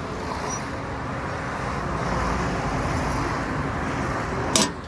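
Steady engine rumble, swelling a little midway, with one sharp click about four and a half seconds in as a small hinged metal cover over the tractor's dashboard switch panel is worked by hand.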